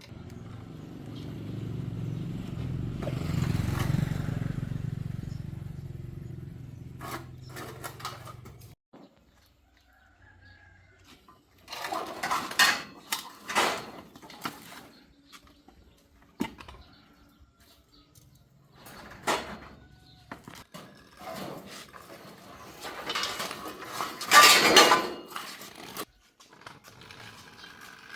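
A low engine rumble swells over the first few seconds and fades out, then comes a run of irregular metallic clanks and clatters of tools and parts being handled, loudest near the end.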